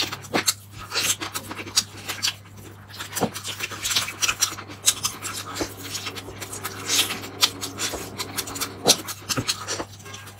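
Close-miked chewing and lip-smacking of roast chicken, with meat and skin being torn apart by hand; a dense run of short, wet clicks and crackles.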